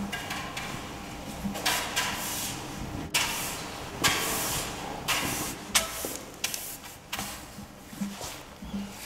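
Long-handled floor mop swishing across a hard, polished floor in repeated strokes, roughly one a second.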